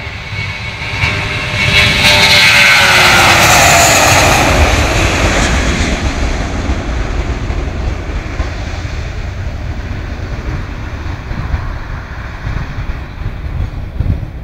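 Twin-engine jet airliner taking off and passing close by. The engine noise builds to a loud peak about two to four seconds in, with whining tones that slide down in pitch as it goes past, then slowly fades as the plane climbs away.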